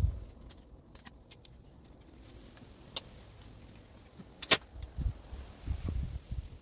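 Pruning secateurs snipping through a hydrangea stem with a sharp click about two-thirds of the way through, after a fainter click. Dull low thumps from handling the flower and conifer stems come near the start and toward the end.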